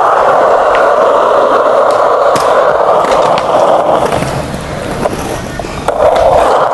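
A skateboard rolling on bare skate bearings with no wheels fitted, the bearings running straight on concrete and making a loud, very noisy rasping rumble with scattered clicks. The noise drops about four seconds in and comes back loud near the end.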